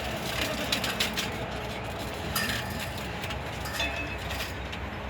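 Live wrestling-match sound: scattered knocks and slaps of bodies and feet on the ring, over a steady low background of the venue and crowd.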